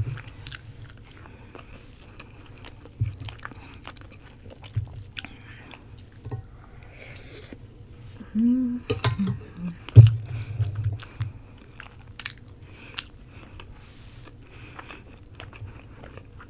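Close-miked chewing and mouth sounds of someone eating roti, with scattered small clicks. About 8.5 s in there is a brief hummed "mm", and about 10 s in a single sharp knock, the loudest sound.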